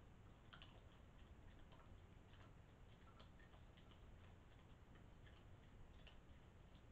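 Near silence with faint, irregular little clicks and crunches of animals chewing food, a cat among them.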